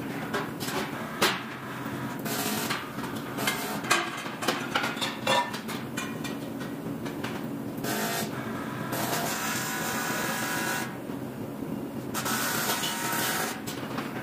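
Factory floor noise: irregular clicks and knocks of aluminium parts being handled on metal work tables over a steady machine hum, with patches of hiss.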